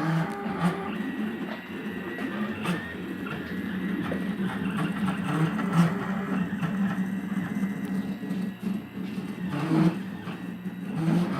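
Stepper motors of a home-built CNC router driving the gantry, with a whining hum whose pitch glides up and down as the axes speed up, slow and change direction.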